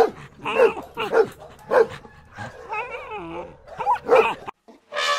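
A small dog barking in short, high yips, several in quick succession, with a wavering whine in the middle before a last pair of yips.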